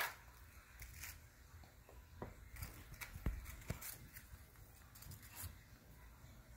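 Faint rustling with scattered soft clicks and taps as vanilla wafer cookies are handled and laid onto pudding in a glass baking dish.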